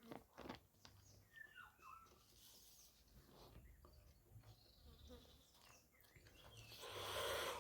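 Quiet close-miked eating sounds: small mouth clicks and smacks, then a louder hissing rush that swells near the end.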